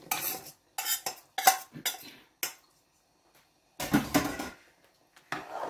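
A knife scraping and tapping sliced carrots off a plastic cutting board into a pot of soup, several short strokes. About four seconds in, a metal spoon clatters against the aluminium pot.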